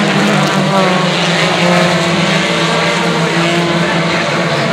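Several short-track race cars running laps on an asphalt oval, their engines droning together, with engine notes rising and falling as cars go by.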